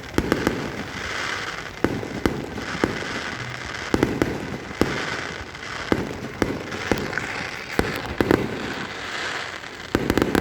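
Fireworks display: aerial shells bursting in a rapid, irregular series of bangs, with continuous crackling between them.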